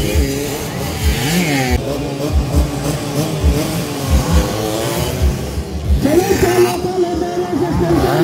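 Motocross dirt bike engines revving, their pitch rising and falling, over background music with a regular low beat about twice a second.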